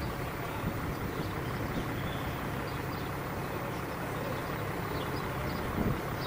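Steady outdoor background noise, a rough low rumble with hiss above it, and no single clear source standing out.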